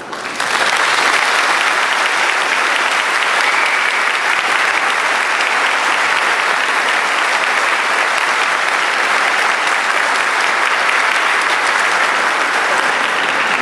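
Audience applauding after an orchestral piece. The clapping breaks out suddenly about half a second in, then holds steady and loud.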